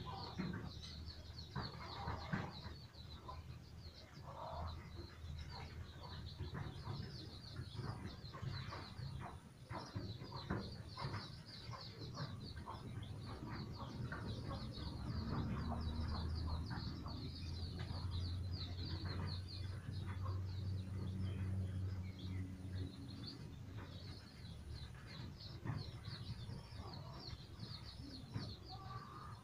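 A brood of young domestic chicks peeping continuously in quick, high chirps, over a steady low hum.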